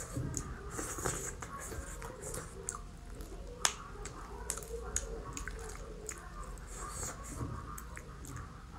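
Cooked brown crab being pulled apart by hand and eaten: small cracks and snaps of shell with wet chewing and sucking, and one sharp crack about three and a half seconds in.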